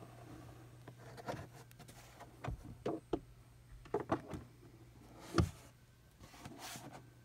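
Scattered light knocks and taps, the loudest about five and a half seconds in, over a faint steady low hum.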